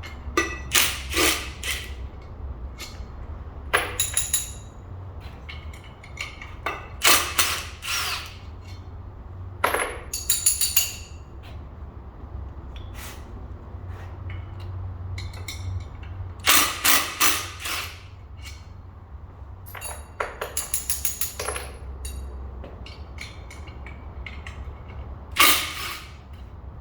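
Metal hand tools and sockets clinking and clattering in short bursts, with a bright ringing, while the bolts of a Toyota Previa's drive-shaft coupler are worked loose. A steady low hum runs underneath.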